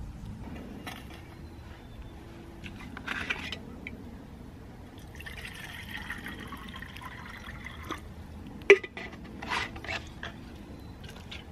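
Water poured from a metal canteen into a metal canteen cup, a steady filling sound lasting about three seconds past the middle. It is followed by one sharp knock, the loudest thing here, and a few softer knocks.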